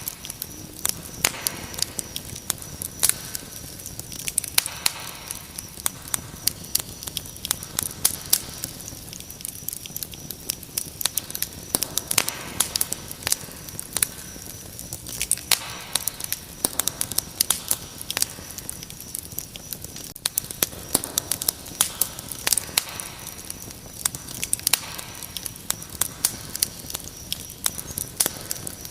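Wood fire crackling with frequent sharp pops, over a steady high trill of crickets.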